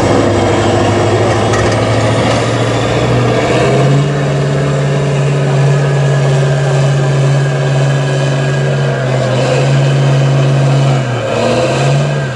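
Tatra 813 8x8 trial truck's diesel engine pulling hard under load up a steep dirt bank. Its revs step up about four seconds in and hold steady, then dip briefly near the end and pick up again.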